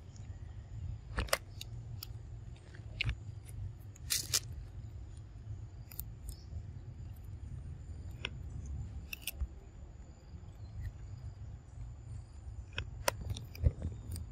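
Young macaque biting and tearing crisp lettuce leaves: scattered sharp crunches and snaps, some close together, over a steady low rumble.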